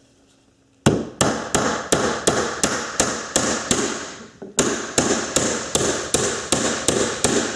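Hammer striking a 6d finish nail into wooden stair nosing: a steady run of sharp strikes, about three a second, with a brief pause about four and a half seconds in before the strikes go on.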